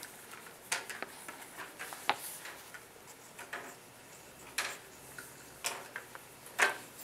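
Scattered light clicks and taps, irregular and roughly one a second, with the sharpest one near the end: small objects such as crayons handled and set down on desks during quiet colouring work.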